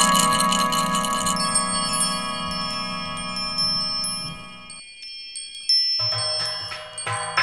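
Metal chimes ringing in many overlapping, sustained tones. The lower tones cut off abruptly about five seconds in, and fresh strikes ring out about six and seven seconds in.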